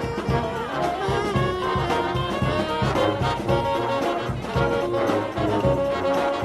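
Music with brass instruments playing held melody notes over a steady beat.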